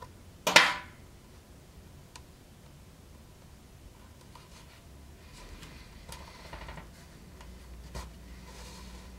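Hand-stitching a leather scabbard: a loud, short rasp about half a second in, then softer rasping as thread is drawn through the stitch holes in the leather, with a faint click near the end.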